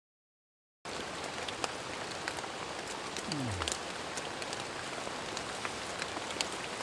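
Heavy rain pouring steadily on a woodland shelter of branches and leaves, heard from inside, with scattered drops ticking close by. It starts abruptly about a second in, after silence.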